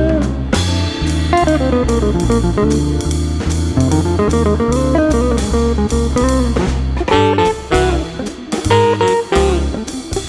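Background music: an instrumental break of a bluesy rock song, with a guitar solo over bass and drums.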